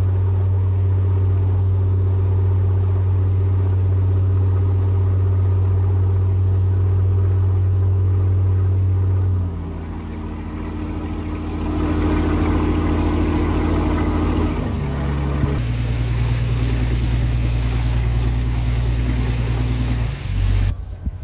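Passenger boat's engine running steadily under way, with water rushing along the hull. The engine note changes abruptly about halfway and again about three quarters in, and cuts off just before the end.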